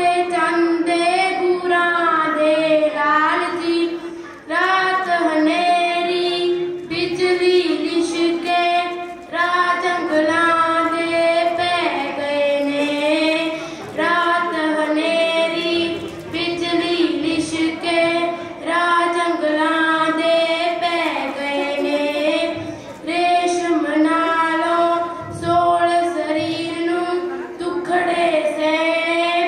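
A girl singing a Punjabi Sikh devotional poem solo into a microphone, in a high voice with a gliding melody and short pauses for breath between lines.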